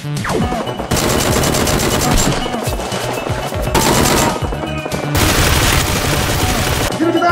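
Rapid automatic gunfire sound effects in repeated bursts, over background music.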